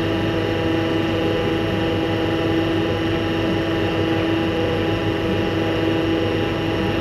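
Sign truck's crane running steadily, with a constant whine from the engine or hydraulic pump over a low mechanical hum.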